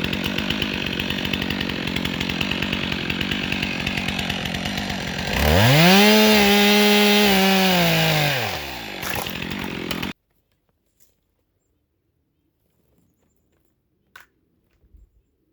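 Stihl MS 362 C two-stroke chainsaw idling, revving up to full throttle for about three seconds and dropping back to idle. The sound then stops abruptly about ten seconds in, leaving faint quiet with a single click near the end.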